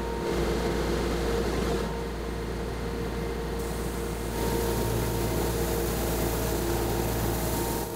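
CNC router spindle spinning a 6-inch orbital sanding disc across a wood-and-epoxy slab: a steady whirring machine noise with a few steady whining tones. The sound changes abruptly about two seconds in and again about four and a half seconds in.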